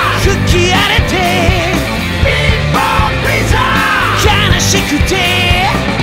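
Loud rock band recording between sung lines: drums and bass with electric guitars, and a high lead line that bends and wavers in pitch.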